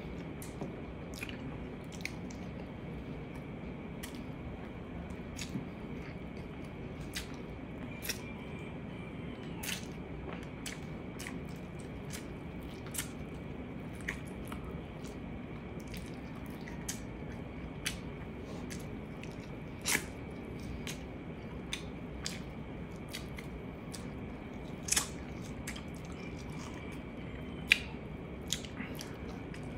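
Close-up eating of braised pork ribs and rice by hand: wet chewing, lip smacks and sharp mouth clicks scattered throughout, with a few louder smacks in the second half. A steady low hum with a faint high whine sits underneath.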